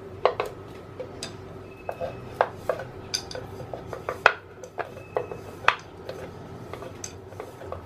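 Wooden rolling pin rolling and knocking on a round wooden chakla board while a puri is rolled out: irregular sharp clacks, about two a second, a few with a faint ringing.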